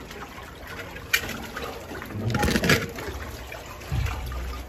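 Shallow stream water splashing and trickling in a narrow pipe as a person crawls through it on hands and knees, with a few sharp knocks and scrapes about a second in, around halfway, and a low thump near the end.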